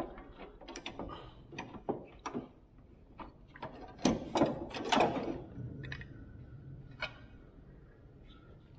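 Scattered metallic clicks and clinks of a wrench working an air-conditioning hard-line fitting at a car's condenser, with a louder cluster of knocks about four to five seconds in.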